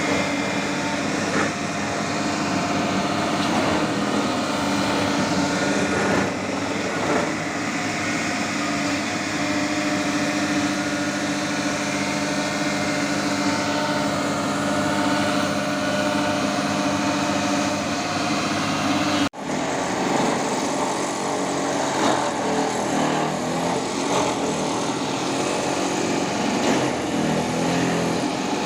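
Hyundai HX220S excavator's diesel engine running steadily as the machine is tried out after a worn O-ring in its hydraulic system was replaced. The sound cuts out for an instant about two-thirds through and comes back rougher.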